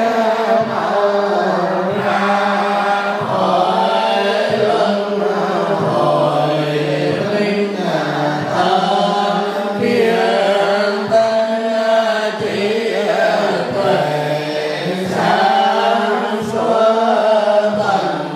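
A group of Buddhist monks, nuns and lay people chanting sutras together in unison, a steady, continuous chant.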